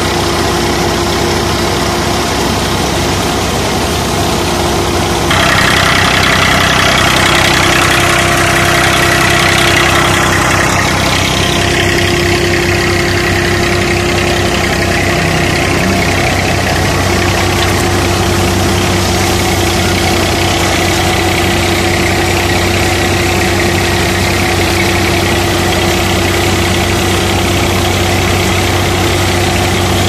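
Massey Ferguson 240 tractor's three-cylinder diesel running steadily while driving a wheat thresher through its PTO shaft, the thresher's drum and fan whirring along with it. A louder rush of noise comes in about five seconds in and eases off about six seconds later.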